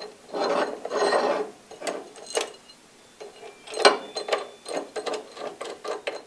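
Metal bandsaw vise jaw and spacer plate being slid and scraped across a steel plate by hand, then a run of small metal clicks and knocks as the jaw is set into place.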